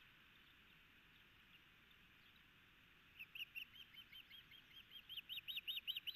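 Osprey calling: a fast series of high, whistled chirps, about four or five a second, starting about halfway through and growing louder, over a faint steady hiss.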